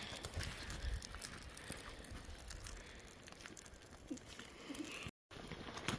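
Faint rustling scattered with small clicks and ticks, with no steady machine or voice.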